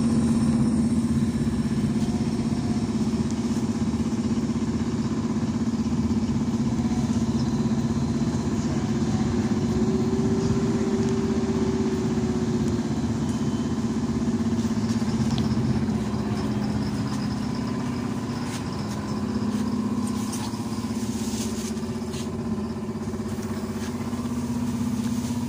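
Inside a BKM 32102 trolleybus under way: a steady low electric hum from its traction equipment, mixed with road noise. A higher whine rises and falls about ten seconds in. The sound eases a little after about sixteen seconds as the trolleybus draws up to a stop.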